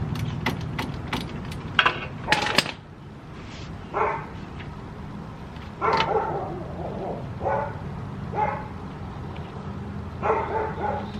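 A dog barking in short barks, about five of them spread over the later part, over a steady low hum. Near the start there is a run of sharp metallic clicks.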